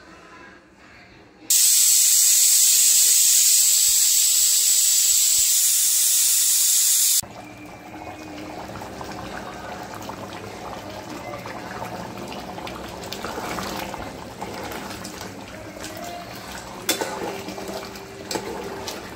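A loud, steady hiss for about six seconds that starts and cuts off abruptly. Then chicken tomato curry bubbles in an aluminium pressure-cooker pot as a steel spoon stirs it, with a few clinks of the spoon against the pot near the end.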